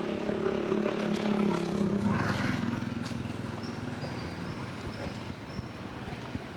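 Vehicle engine running steadily, dying away about two seconds in, then steady outdoor noise with a few faint high chirps.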